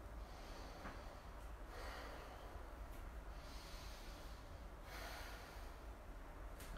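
Faint breathing, a man's slow breaths in and out repeating every second or two, as he catches his breath after intense yoga exercise.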